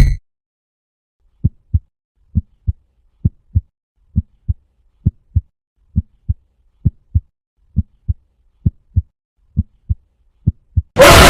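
Heartbeat sound effect: a steady run of paired low thumps, lub-dub, about one beat a second, starting about a second and a half in. Near the end a sudden loud blast of harsh noise cuts in.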